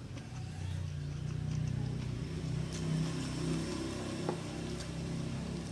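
A low motor hum from a vehicle going by, building over the first three seconds and then fading. Faint small clicks of eating are heard over it.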